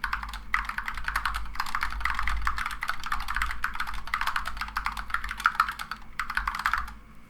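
Fast typing on an Ergodox EZ split mechanical keyboard with Zealios V2 67g tactile switches and SA profile keycaps: a dense run of keystroke clacks with two brief pauses, stopping shortly before the end. A steady low hum runs underneath.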